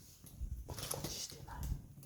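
Wood campfire burning, with several small crackles and snaps.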